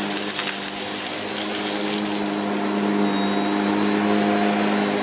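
Shark Powered Lift Away NV681UKT bagless upright vacuum cleaner running steadily as it is pushed across carpet: a constant motor hum with a rushing hiss, which is brighter for the first two seconds.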